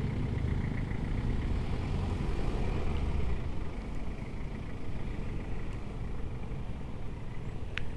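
Motorcycle engine running steadily in traffic, a low rumble with little wind noise. A short click comes near the end.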